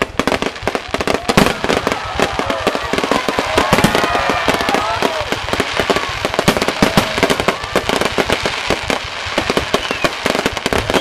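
Fireworks going off in a dense, continuous barrage of sharp bangs and crackles, many overlapping, with no pause.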